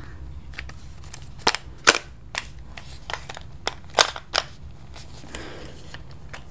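About half a dozen sharp clicks and taps, irregularly spaced and loudest about two seconds in, from hands handling a small box of reusable straws and its packaging. A faint rustle follows a little past five seconds.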